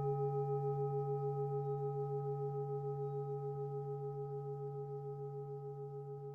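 Singing bowl ringing out after a single strike: several steady tones with a fast wavering pulse, slowly fading away.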